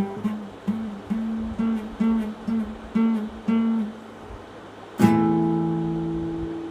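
Guitar playing the ending of a slow blues: a run of repeated single notes, about two a second, then a short pause and a final chord struck about five seconds in that is left to ring out.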